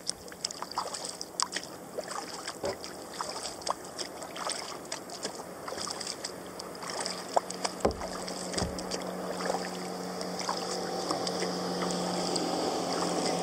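Kayak paddling: paddle blades dipping and dripping, water splashing and lapping at the hull, with many small clicks and splashes. A steady low hum comes in about halfway through and slowly grows louder.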